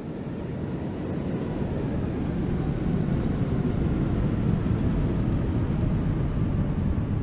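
Aircraft engine noise: a steady low rumble that swells slightly over the first few seconds.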